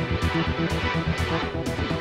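Background music with guitar and a steady beat, about two beats a second.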